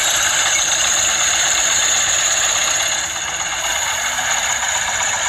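Single-cylinder diesel engine of a three-wheeled công nông farm truck running steadily.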